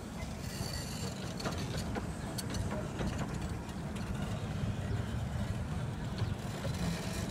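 Miniature-railway passenger coaches of the 15-inch-gauge Romney, Hythe & Dymchurch Railway rolling slowly past: a steady low rumble of wheels on track with scattered clicks and knocks.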